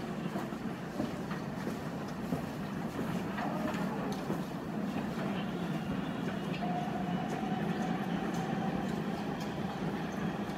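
New York City subway train running on the track: a steady low rumble, with a faint higher whine coming in for a few seconds past the middle.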